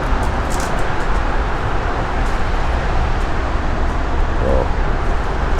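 Steady outdoor background noise, an even rumble heaviest in the low end, with no distinct event.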